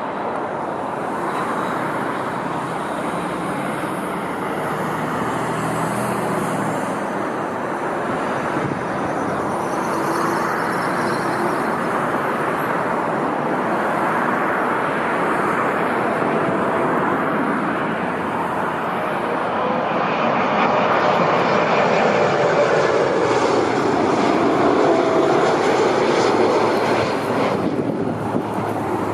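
Jet airliner passing, its engine noise swelling slowly to a peak about three quarters of the way through, with a falling whine, then easing near the end.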